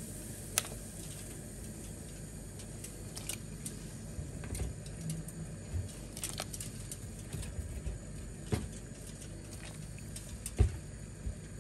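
A stainless steel pot of water at a rolling boil, bubbling with a steady hiss, while broccoli florets are dropped in. Scattered light clicks and knocks sound as they go in, with a louder knock near the end.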